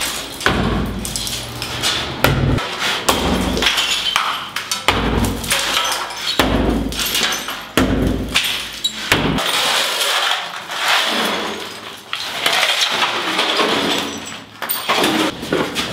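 Sledgehammer striking a tiled wall: about seven heavy thuds, one every second and a half or so, each with ceramic tiles cracking and shards clattering down. After about nine seconds the heavy blows stop, leaving lighter cracking and clinking of broken tile.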